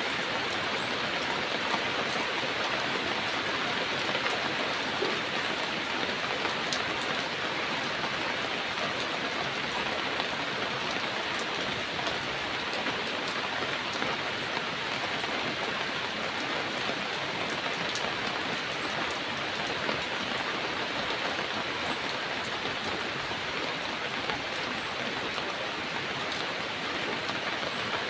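Heavy rain falling steadily, a dense even patter of drops on surfaces. A few faint high chirps sound now and then.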